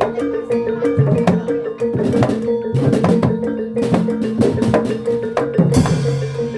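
Live gamelan-style percussion ensemble accompanying a barongan dance: drum strokes and struck metal instruments playing a busy rhythm over a held ringing note, with a loud cymbal-like crash near the end.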